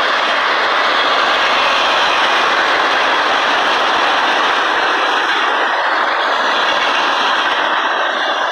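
Freight cars of a passing manifest train, boxcars and tank cars, rolling by on the rails: a loud, steady rush of wheel and rail noise.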